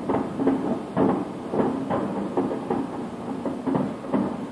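Aerial firework shells bursting in a rapid series of booms, about two a second, each with a short echoing tail.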